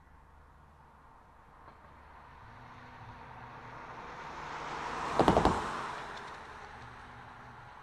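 A car passes close by on the road, its noise swelling and fading, with a quick run of about four thumps about five seconds in as its tyres cross the grade-crossing rails.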